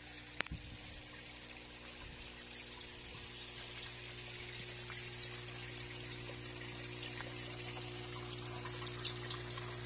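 Water trickling and pouring in an aquaponics system, growing slightly louder, over a steady low hum. One sharp click shortly after the start.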